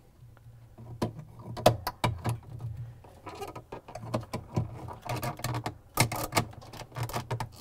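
Irregular plastic clicks and knocks as a gloved hand fits the plastic mounting bracket onto a Whirlpool refrigerator evaporator fan motor and snaps it into place.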